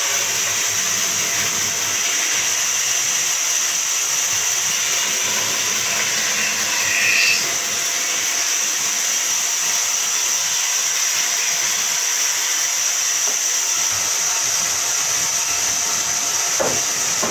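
Band saw running steadily, its blade cutting through a thick wooden block to shape a curved leg, with a brief louder, higher sound about seven seconds in.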